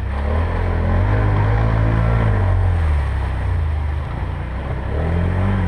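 4x4 ATV engine revving: it climbs in pitch about a second in, eases off, and rises again near the end.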